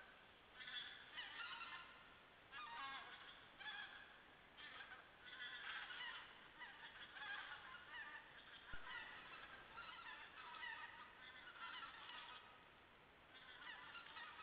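Flock of geese calling, many faint overlapping honks coming in clusters throughout.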